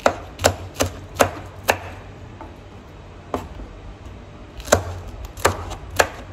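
Knife slicing green chilies on a cutting board: sharp taps of the blade striking the board, about five in quick succession at first, then a short pause and a few more spaced-out cuts.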